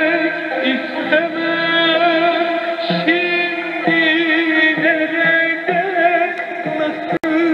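Middle Eastern music with a wavering sung melody over held instrumental tones, received as a shortwave AM broadcast on a crystal set. The sound cuts out for an instant about seven seconds in.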